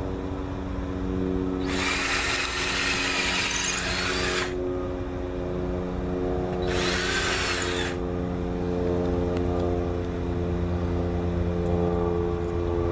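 Power tool cutting into pallet board in two bursts, the first about three seconds long and the second just over a second, over a steady hum.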